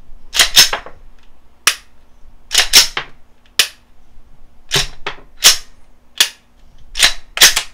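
Glock 17 pistol's slide being racked by hand over and over, sharp metallic clacks, often in quick pairs as it goes back and snaps forward. It is feeding and ejecting snap caps in a functions check of a reassembled magazine.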